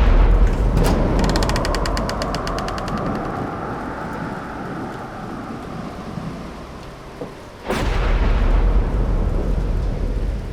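Thunder sound effect: a crash of thunder with a fast crackle, rumbling away slowly, then a second sudden crash near the end that rumbles on.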